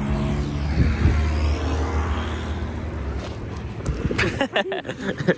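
A motor vehicle engine running close by, its low hum fading away after about three seconds, followed near the end by a few short voice-like sounds.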